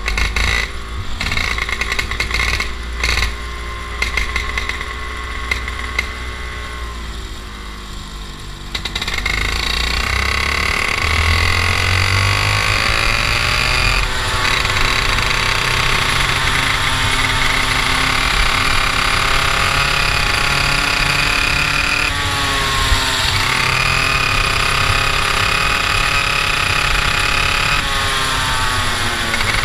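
IAME two-stroke kart engine heard from the onboard seat. For about the first nine seconds it runs roughly at low revs with uneven knocks. Then it opens up, rises in pitch and runs at high revs, dropping in pitch and climbing back three times as the kart slows for corners.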